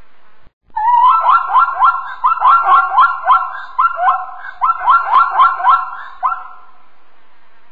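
Zebra calling: a rapid run of short, yelping barks, about three a second, starting just under a second in and stopping some five and a half seconds later.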